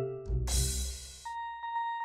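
Background music: a few quick pitched notes, then a final bass-drum stroke with a cymbal crash about a third of a second in that dies away, leaving a single high note held with faint ticks.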